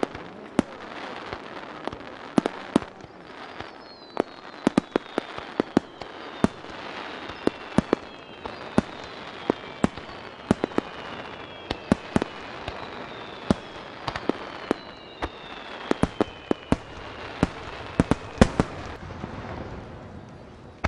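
Aerial fireworks shells bursting in quick, irregular succession: sharp bangs over a continuous crackle, with several long whistles falling in pitch through the middle, and the bangs thinning out near the end.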